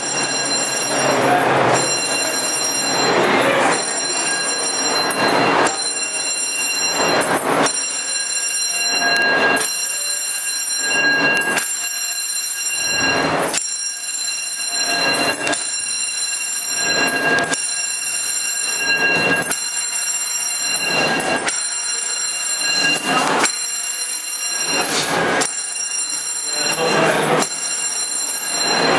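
Building fire alarm sounding continuously, a steady high-pitched ring with a surge in its sound about every two seconds.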